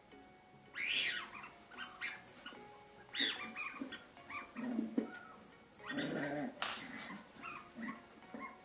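A sheltie puppy chewing a plastic rolled-newspaper squeaky toy, squeezing out several high squeaks that glide in pitch, with soft puppy growls in between.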